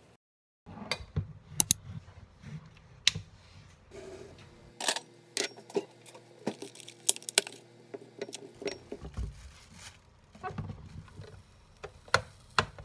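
Irregular clicks, knocks and light clatter of food and dishes being handled on a kitchen counter, with cherry tomatoes being put into a bowl beside an electric sandwich grill.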